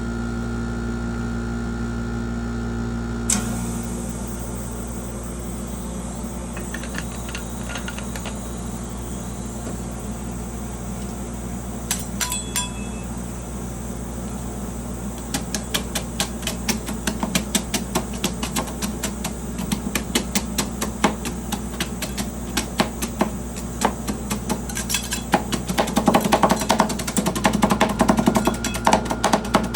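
Metal spatulas chopping and tapping rapidly on the frozen plate of a rolled-ice-cream pan, over the pan's steady low hum. A few scattered taps come early, then the chopping turns continuous about halfway through and grows faster and louder toward the end.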